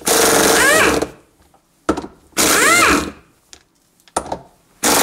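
Pneumatic impact wrench running in three short bursts, its motor pitch rising then falling in each, undoing the 12-point bolts that hold the balance shaft housing of a Toyota 2.2-litre four-cylinder engine.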